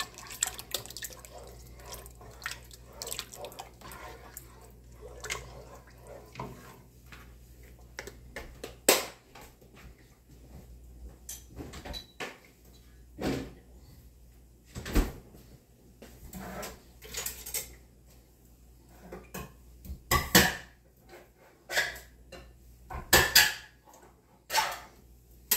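Kitchen clatter: a wooden spoon scraping and knocking in a soup pot as oat milk is poured in, followed by scattered sharp knocks and clinks of utensils and dishes.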